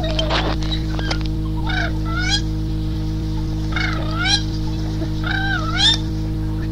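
Three bird-like calls about two seconds apart, each dipping and then rising in pitch, over a steady electrical hum.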